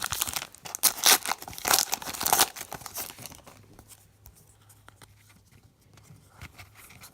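Trading card pack wrapper being torn open and crinkled, loud crackling for about the first three seconds, then fainter rustling as the cards are handled.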